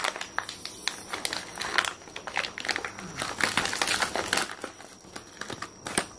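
Foil-lined plastic pouch crinkling and crackling in the hands as its sealed top is pinched and torn open, a dense run of sharp crackles.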